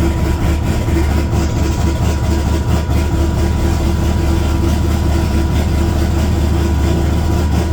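Engine on a Holley Terminator X EFI system idling steadily, run to check a newly wired tachometer.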